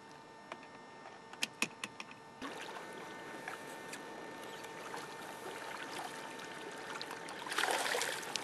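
Water splashing as a hooked fish is drawn into a landing net, with the loudest splash near the end. There are a few sharp clicks in the first two seconds.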